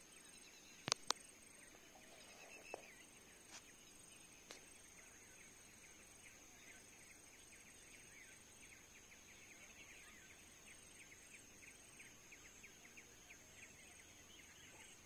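Faint forest ambience: a steady high whine of insects, with rapid repeated chirping from about halfway through, and two sharp clicks about a second in.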